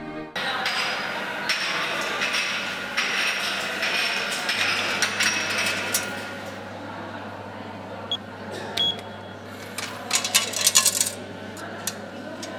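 Coin-operated vending machine in use: coins and buttons clicking, a short electronic beep, then a burst of metallic clatter about ten seconds in, over steady room noise.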